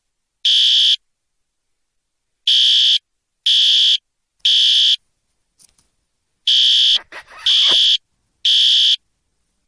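Fire alarm sounding: high, loud beeps of about half a second each, in groups of three about a second apart with a pause between groups. A brief lower sound cuts in between beeps about seven seconds in.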